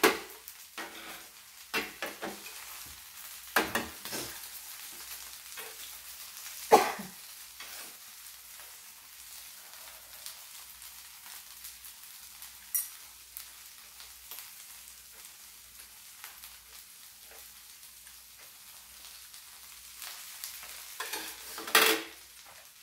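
Squid and green-onion pancake (pajeon) frying on an electric griddle: a faint steady sizzle, with scattered short knocks and clicks, the loudest about seven seconds in and a louder cluster near the end.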